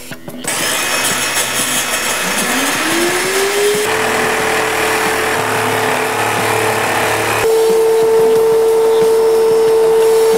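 Wet/dry vacuum cleaner switched on with a few clicks: its motor whines up in pitch over a couple of seconds, then runs steadily, growing louder with a change in tone about seven seconds in.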